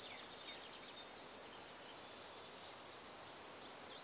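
Faint garden ambience: small birds giving short falling chirps, a few near the start and one near the end, over a steady high hiss.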